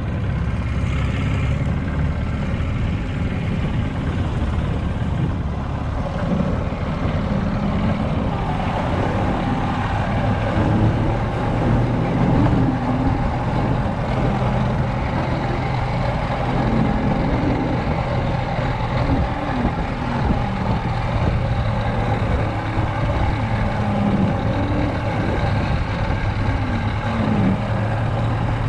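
Golf cart driving over a grassy field track: a steady low motor hum under the rough rumble of the ride, the hum growing steadier and stronger about a third of the way in.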